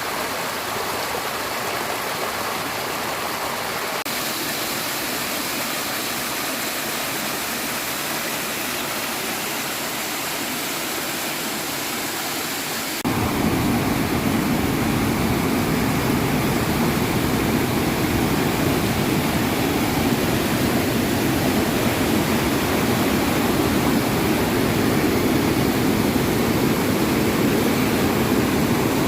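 Rushing water, a steady hiss-like roar; about thirteen seconds in it jumps abruptly louder and deeper.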